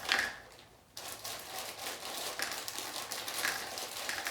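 Crinkling and crackling rustle from handling Cadbury mini eggs. It starts with a sharp crinkle, pauses for under a second, then runs on as a steady rustle of many small clicks.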